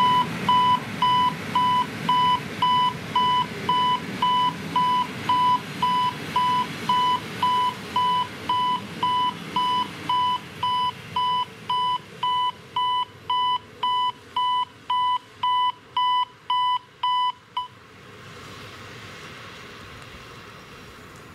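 EHL-S10 electronic warning signal of a Polish automatic level crossing beeping evenly, about one and a half beeps a second, over the fading rumble of a passenger train rolling past. The beeping cuts off about 17 seconds in as the crossing signals switch off after the train has cleared.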